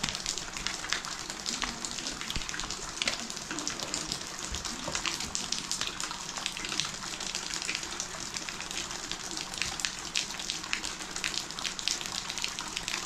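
Water poured from a plastic jug over bare feet, splashing and trickling onto a concrete floor, over a steady patter of rain.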